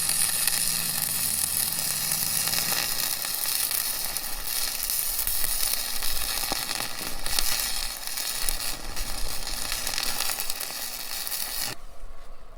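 Stick welder arc burning steadily with a dense hiss, welding a washer onto a twisted-off bolt stub. It cuts off suddenly about a second before the end.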